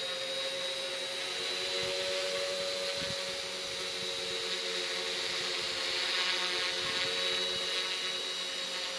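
Quadcopter's electric motors and propellers running in flight: a steady hum with a thin high whine above it.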